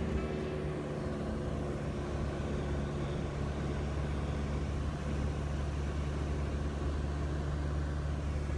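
Steady drone of a Cessna 172's piston engine and propeller in flight, heard from inside the cabin.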